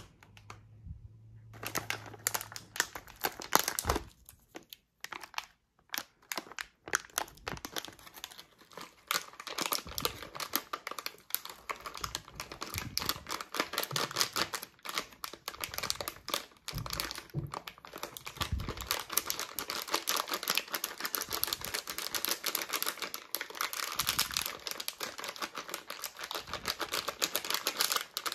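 Plastic condiment packet crinkling and rustling as it is handled and squeezed, its crispy fried bean-curd skin and peanuts shaken out into a bowl. The dense crackle starts about two seconds in.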